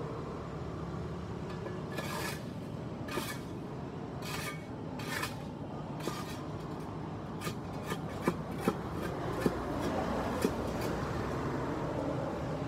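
A hand tool scraping dirt and debris across a concrete sidewalk: about four scraping strokes in the first half, then several sharp clicks.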